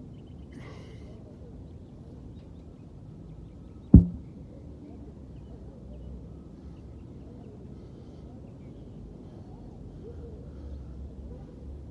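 Steady low outdoor rumble with one sharp, loud thump about four seconds in that dies away quickly.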